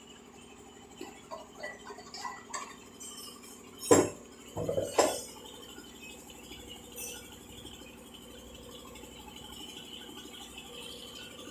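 Hard objects clinking and knocking: a few light clicks, then two loud sharp knocks about a second apart, and a faint one a couple of seconds later.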